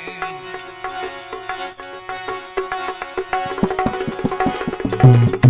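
Instrumental music of a devotional bhajan: held melodic notes over hand-drum percussion that grows busier about halfway through, with heavy low drum strokes near the end.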